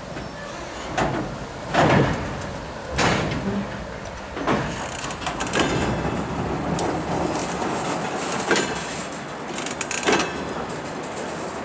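Freight flatcars rolling slowly past during shunting, a steady rumble broken by irregular metallic clanks and knocks from the wheels and couplings, loudest about two seconds in and again near the end.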